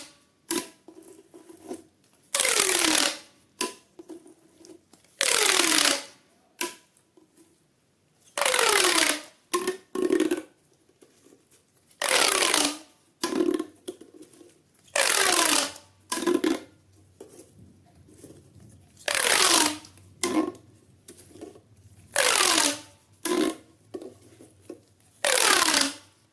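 Corrugated plastic pop tube toy pulled out repeatedly, about eight times. Each pull is a roughly one-second rapid ripple of pops falling in pitch, with light plastic clacks of handling between pulls.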